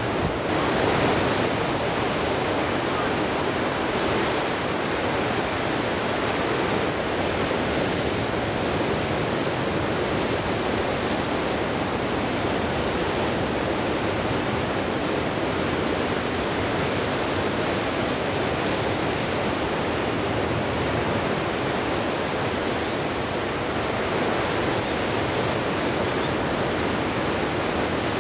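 Ocean surf breaking and washing ashore, a steady rushing noise.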